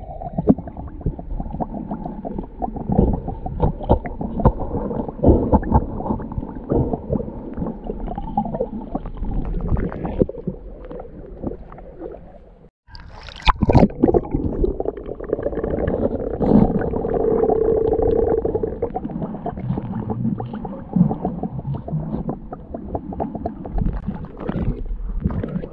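Muffled water noise heard through a camera microphone dipping in and out of shallow sea water: gurgling and sloshing with scattered small clicks and knocks. About halfway the sound drops out briefly, then a sharp splash.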